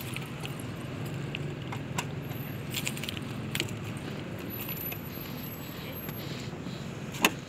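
Keys jangling and clicking as a parked scooter is handled: scattered light clicks, with a louder one near the end, over a low steady hum of road traffic.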